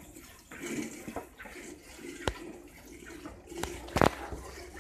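Streams of milk squirting into a steel pail as a water buffalo is hand-milked. Two sharp knocks stand out, one about two seconds in and a louder one near the end.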